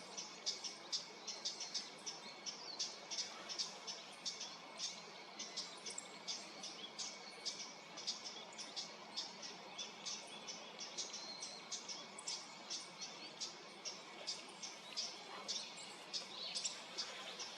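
Meadow bunting giving short, high, sharp notes in quick succession, two to four a second throughout, over a steady background hiss.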